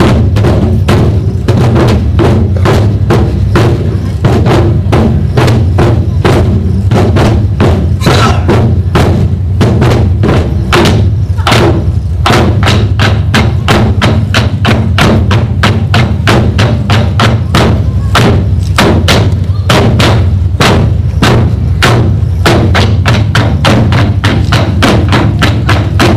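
Group of Korean drums (buk) beaten together in a fast, steady rhythm, several strokes a second, over steady low backing music.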